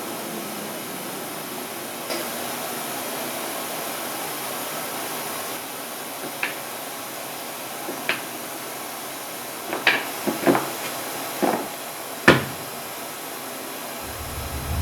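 Light knocks and taps over a steady hiss, scattered and coming more often in the second half, the loudest a sharp knock near the end.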